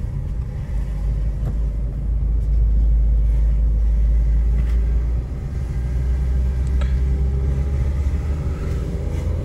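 Inside the cabin of a Kia Rio with a 1.5 turbo-diesel engine pulling away at low speed: a steady low rumble from engine and road. Near the end the engine note rises faintly as the car speeds up.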